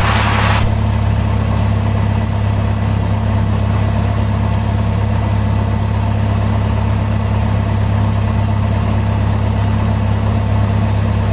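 Cessna 172's four-cylinder piston engine running steadily at low taxi power, a constant low drone heard from inside the cockpit.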